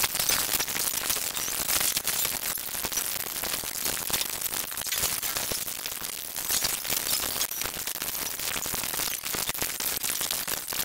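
Cartoon episode soundtrack sped up many times over, its voices, music and effects squeezed into a steady dense crackling hiss in which no words or tune can be made out.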